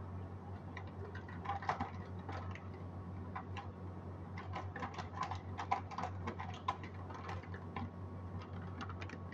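Cooking in a wok on the stove: a run of light, irregular clicks and ticks, thickest in the middle, over a steady low hum.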